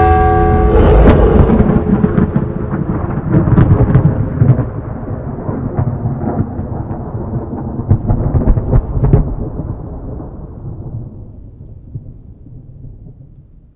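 Thunder sound effect: deep rumbling with sharp cracks about four seconds in and again around eight to nine seconds, slowly dying away toward the end. A held chord of tones ends within the first second.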